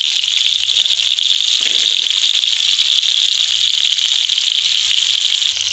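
Chicken tikka pieces on iron skewers sizzling steadily in hot ghee on a tawa.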